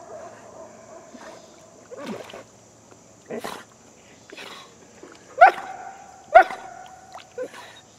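A dog whining and barking: a held whine at the start, then a few short barks, the two loudest near the end each trailing off into a whine.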